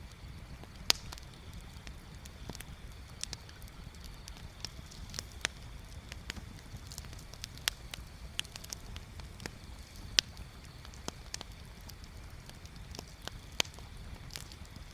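Wood bonfire crackling: irregular sharp pops and snaps, the loudest about a second in and about ten seconds in, over a steady low rumble.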